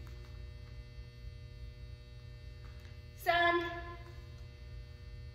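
Steady electrical mains hum. About three seconds in, a voice calls out one count, 'san' (Japanese for three).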